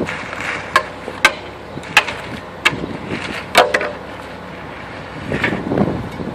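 Hand tools working a wet concrete pour: several sharp knocks and clacks, about five in the first four seconds, with scraping and shuffling in between and a rougher scrape near the end.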